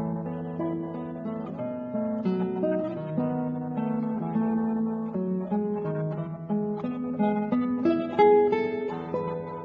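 Instrumental background music: a melody of plucked notes, one after another, over lower sustained notes.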